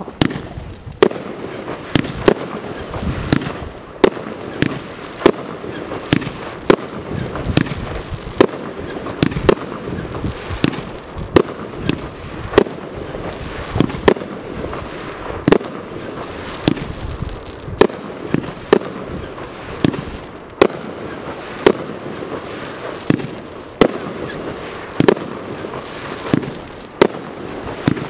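A 92-shot fanned firework cake (AFAC JB7 Japan Pro) firing a steady volley of sharp bangs, roughly one to two a second, with crackling from the bursts between shots.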